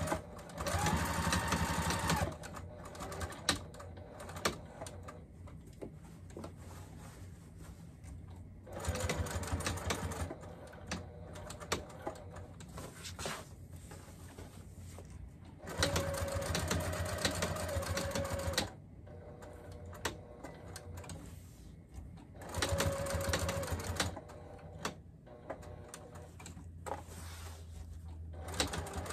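Electric sewing machine stitching in four short runs of about two to three seconds each, with quieter pauses of fabric handling and clicks between them, as Velcro is sewn onto the bag.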